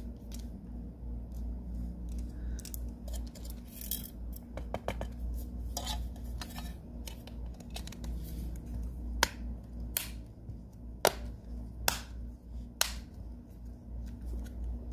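Light clicks and taps of small plastic and metal phone parts and tools being handled during reassembly, then five sharp clicks about a second apart in the second half, over a steady low hum.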